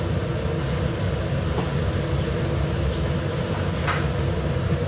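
Steady low rumble with a faint hum, and a small clink about four seconds in.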